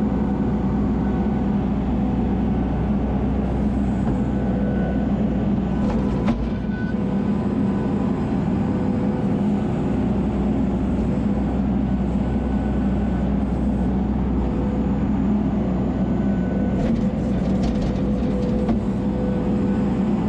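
ASV RT-40 compact track loader's diesel engine running steadily under load while its bucket scrapes up sod, heard from inside the cab. A few sharp knocks come about six seconds in and again near the end.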